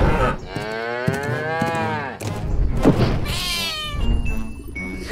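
Cartoon animal calls: one long call that rises and falls in pitch, a thump near the middle, then a short call that sweeps sharply upward.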